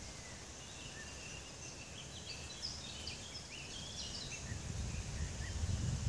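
Small birds chirping and whistling in the trees, their short high chirps thickest in the middle. A low rumble builds near the end.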